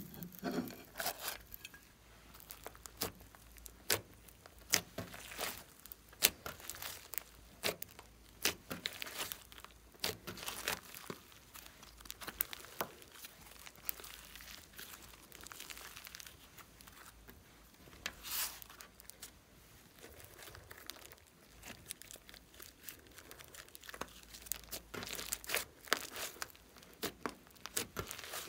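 Thick slime mixed with clay and glitter being kneaded, stretched and pressed by hand, giving irregular sticky crackles and pops.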